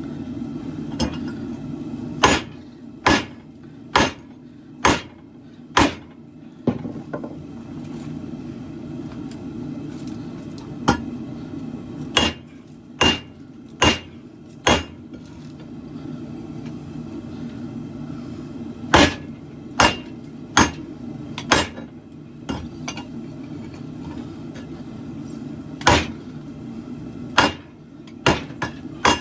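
Hammer blows on a steel khopesh blade at the anvil as it is forged into its curve. The blows come in bursts of three to five, about a second apart, with pauses of several seconds between bursts, over a steady low drone.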